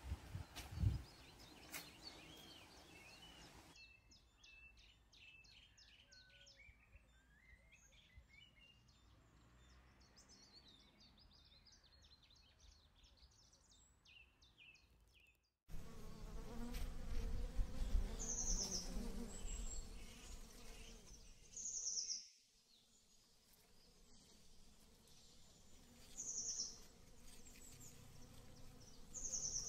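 Small birds chirping in quick high trills; then, after an abrupt cut about halfway through, a bee buzzing close by at butterfly bush flowers. Short high bird chirps come every few seconds over a low rumble.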